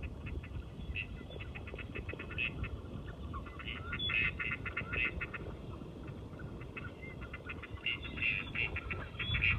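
Ducks quacking in rapid runs of short calls, coming in clusters and loudest in the middle and near the end, over a low steady rumble.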